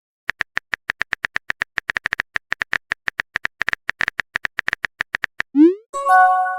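Phone keyboard typing sound effect: a rapid, even run of clicks, about nine a second, for five seconds. It is followed by a short rising swoosh and a ringing chime of several notes, the sound of a message being sent and arriving.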